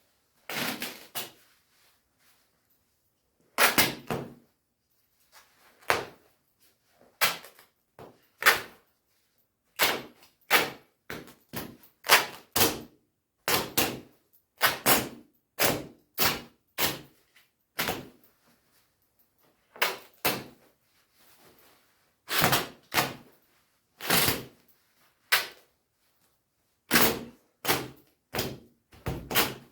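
Shiny down jacket's shell fabric being ripped in short, sharp tears, about thirty of them, irregularly spaced with silent pauses between.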